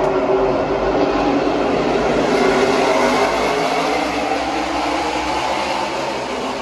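A pack of NASCAR Xfinity Series V8 stock cars running past together, a dense continuous engine roar that slowly fades toward the end as the field moves away.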